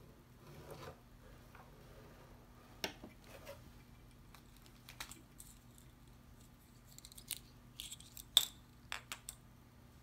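Scattered light clicks and taps of small parts and tools being handled during a speedometer rebuild, sparse at first and coming in a quick cluster in the last few seconds, with one sharper click near the end.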